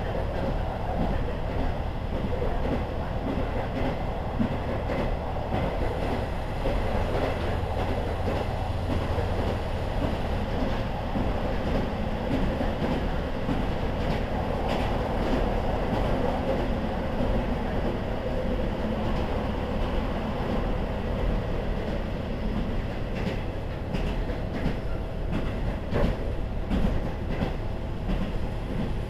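KiHa 40 diesel railcar running along the line: a steady rumble of engine and wheels on rail, with a few sharp clicks of the wheels over rail joints. A steady whine comes in near the end.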